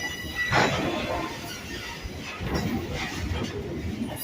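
Passenger train rolling along its track, heard from aboard: a steady low rumble of wheels and cars, a brief high wheel squeal at the start, and a short sharp clatter about half a second in.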